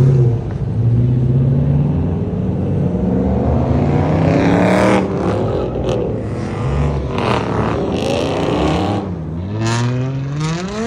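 Car engine revving and accelerating hard as it drives off, its pitch climbing and falling several times with a steep rise near the end.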